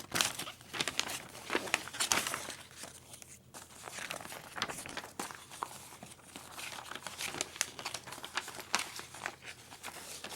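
Posters and their wrapping being handled and unrolled: irregular crinkling and rustling of paper, with many small crackles.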